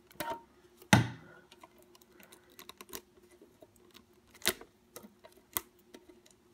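Hands opening a toy's retail packaging: scattered, irregular clicks and taps of cardboard and plastic being handled, the loudest about a second in and again after about four and a half seconds.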